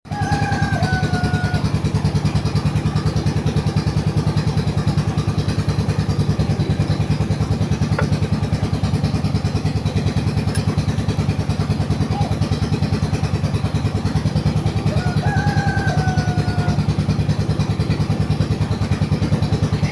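An engine running steadily with a rapid, even low throb. A short, slightly falling whistle-like tone sounds twice: at the start and about 15 seconds in.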